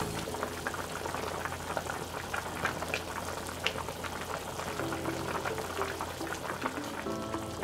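Turkey, potato and carrot stew boiling hard in an uncovered stainless-steel wok: a steady bubbling made of many small pops and crackles.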